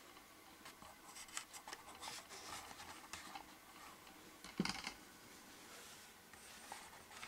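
Faint scraping and rubbing as a hand turns a segmented disc on its bearing, with one light knock about halfway through.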